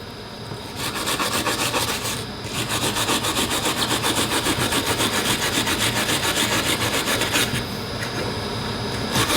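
Quick back-and-forth rubbing strokes, about four a second, on a small part of a Wahl adjustable clipper blade, done by hand to prepare it before sharpening; the strokes pause briefly twice.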